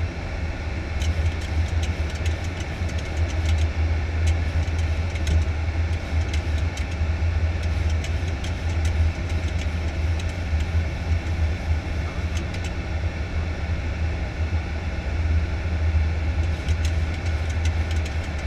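Steady low rumble of airflow and engines on the flight deck of a Boeing 737-800 in descent, with scattered faint ticks.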